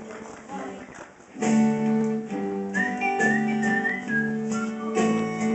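Song accompaniment on acoustic guitar: soft for about a second and a half, then louder chords with a whistled melody of short gliding notes over them.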